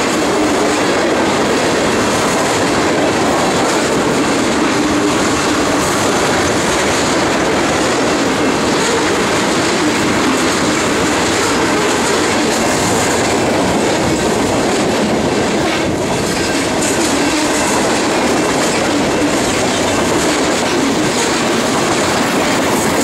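Loaded freight cars of a heavy manifest train, tank cars and covered hoppers, rolling steadily past close by, their steel wheels running loudly over the rails.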